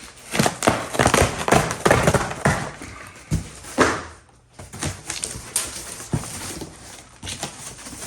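Cardboard box being opened by hand: irregular tearing, rustling and knocking of packaging, with a brief lull a little past halfway.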